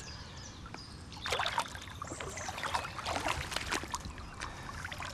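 Shallow pond water splashing and trickling as hands scoop it up and it runs out between cupped fingers. The splashes and drips are irregular and begin about a second in.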